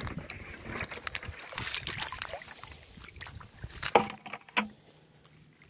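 Water sloshing and splashing as a plastic bucket of horseshoe crabs is tipped out into shallow water. About four seconds in come two sharp knocks, half a second apart.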